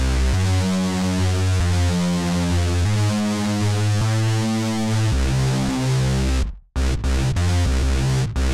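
Analog-style synth bass from the Raw Voltage expansion for Native Instruments Maschine, played from the pads as a line of low held notes that change pitch about once a second. It cuts out briefly about six and a half seconds in, then comes back in shorter, choppier notes.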